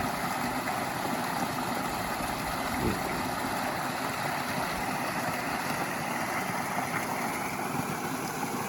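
Steady rush of water pouring out of a culvert outlet into a stream, with a brief knock about three seconds in.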